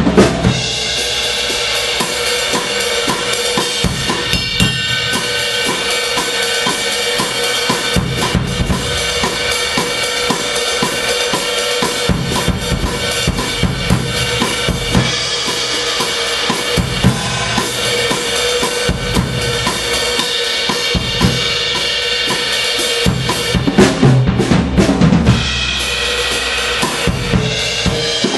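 Acoustic drum kit played with wooden sticks: a steady groove of bass drum, snare and tom hits under a constant wash of cymbals. There is a louder, busier stretch about 24 seconds in.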